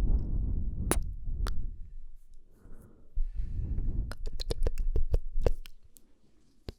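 Close-miked ASMR mouth sounds: breathy air at the start, then wet lip and tongue clicks, two single ones and a quick run of many about four seconds in, with a last click near the end.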